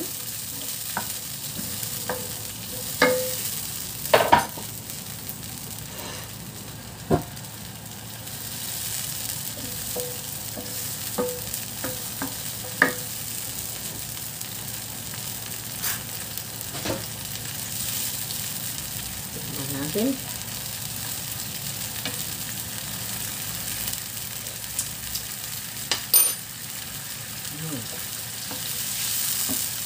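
Soy sauce mixture simmering with a steady sizzle in a nonstick frying pan, stirred with a wooden spoon that knocks against the pan now and then, hardest about three and four seconds in.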